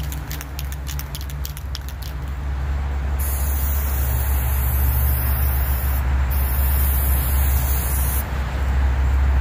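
Aerosol can of Rust-Oleum black spray paint hissing as it sprays onto steel lockers, in two long bursts of a few seconds each with a short break between. Before the spraying there is quick clicking, the can's mixing ball rattling. A steady low rumble runs underneath.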